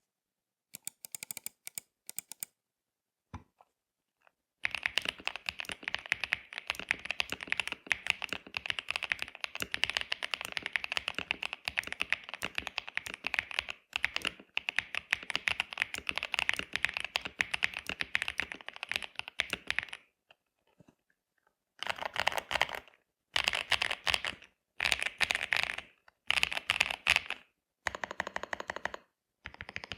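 Typing on a Royal Kludge RK61 mechanical keyboard with Akko CS Silver linear switches, cherry-profile keycaps and a foam-modded case. A few single key presses come first, then about fifteen seconds of fast continuous typing, a pause of about two seconds, and then several short bursts of typing.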